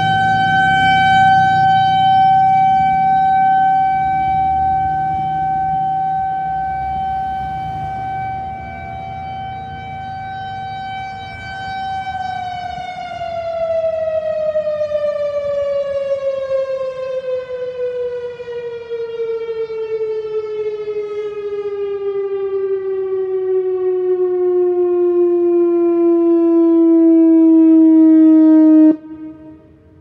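Whelen WPS 4004 electronic outdoor warning siren sounding a steady tone that swells and fades as its speaker head rotates. About twelve seconds in, the pitch slides slowly downward in a wind-down, ending the test signal, and it cuts off abruptly near the end.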